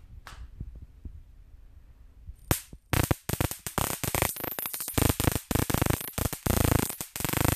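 High-voltage electric sparks crackling at a steel sword blade. There are a few faint ticks at first, then from about three seconds in a dense, irregular run of loud sharp cracks.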